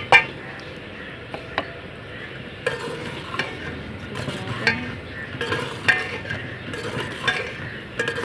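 Metal spatula stirring and scraping okra in a frying yogurt-and-spice masala in an aluminium pot, the mixture sizzling. A single clink right at the start, then repeated scraping strokes from about a third of the way in.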